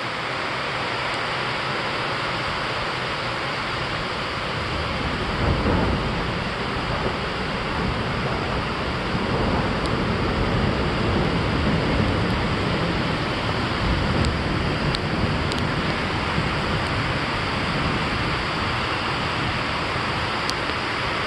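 Thunder rolling in a long, deep rumble over steady rain. The rumble swells about five seconds in and keeps rolling for many seconds.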